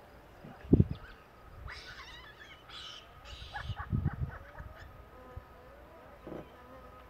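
Outdoor bush ambience with a steady faint insect buzz. A sharp low thump comes just under a second in, and a few short high scratchy sounds and low thuds follow between about two and four seconds in.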